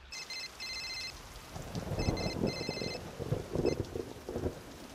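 A telephone ringing with a rapid trill, in two rings of about a second each and a brief blip after. Under the second ring a low rumbling, rain-like noise sets in.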